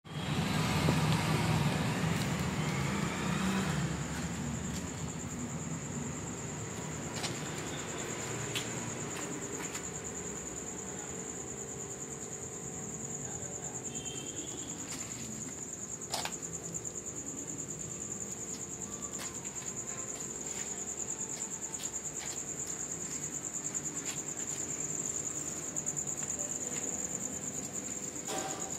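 Crickets trilling, a steady high-pitched note without a break. A louder noise fills the first few seconds, and a few sharp clicks come later.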